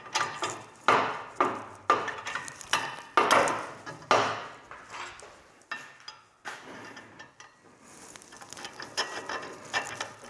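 Steel U-bolts clinking and knocking against metal as they are slid into freshly drilled holes: a run of irregular sharp metal taps, busiest in the first half and lighter near the end.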